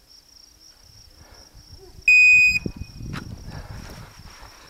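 Shot timer's start signal: one loud, steady electronic beep lasting about half a second, about two seconds in, followed by a sharp click about a second later. Crickets chirr steadily in the background.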